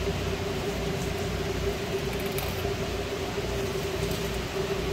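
Steady mechanical hum: one constant droning tone over a low rumble, with no clear sound of the knife.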